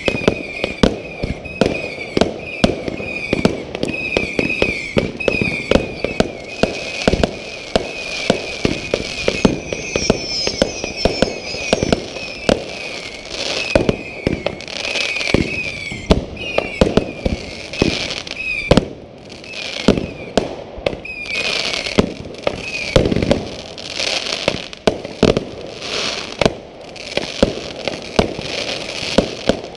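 Fireworks going off in quick succession: many sharp bangs a second apart or less, with crackling bursts near the end. A wavering high tone comes and goes through much of it.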